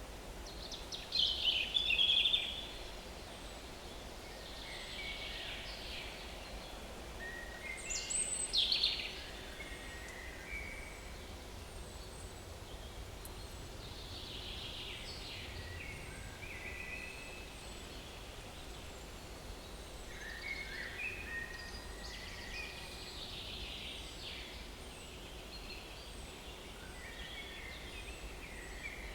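Small woodland songbirds singing in short phrases over a steady background hiss, the loudest phrases about a second in and around eight seconds in. A faint high note repeats about once a second.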